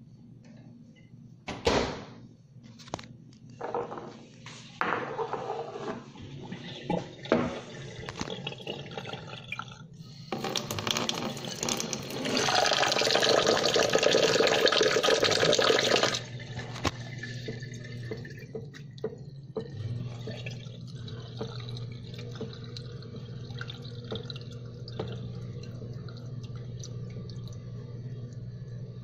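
A few knocks and clinks of a plate being handled, then a kitchen tap running hard onto a plate of glutinous rice in a steel sink for several seconds, cutting off suddenly. Quieter sloshing follows as the rice is rubbed and rinsed by hand in the water.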